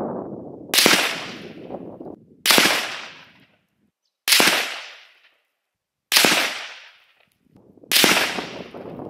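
Five shots from an S.A.F. Lithgow Target Rifle in 7.62 NATO, evenly spaced a little under two seconds apart, each report trailing off over about a second.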